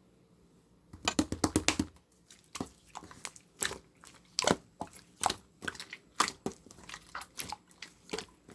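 Slime being squeezed and kneaded by hand, making quick sticky pops and crackles: a dense burst about a second in, then a pop every half second or so.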